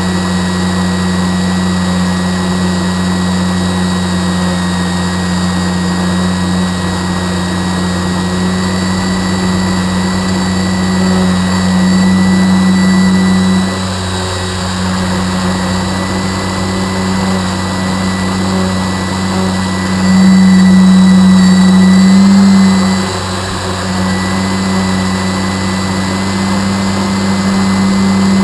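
A motor running steadily with a low hum and a thin high whine, swelling louder for a few seconds twice, once around the middle and again about two-thirds through.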